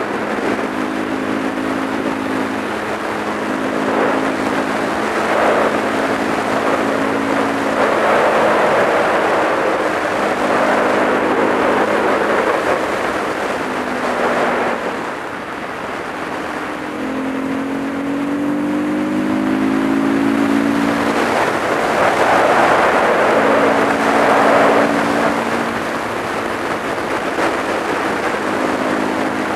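Supermoto motorcycle engine running at road speed, with heavy wind rush on the microphone. About halfway through the engine eases off, then its note rises as it accelerates again.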